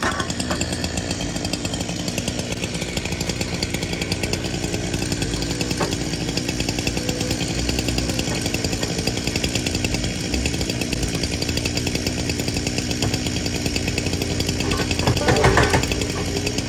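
Compact track loader's diesel engine running steadily under load while its stump-removal attachment digs into the ground. It gets louder briefly about fifteen seconds in.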